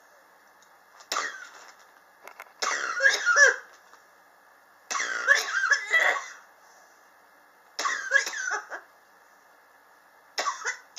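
A person coughing in about five separate fits, each up to a second or so long, with short pauses between them: a chronic cough that has persisted for about three years.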